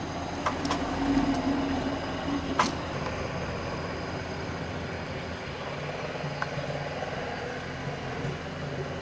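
Suzuki Vitara 4x4's engine running at low revs as it crawls up a steep rutted gully. A sharp knock comes about two and a half seconds in, and the engine note drops lower in the second half.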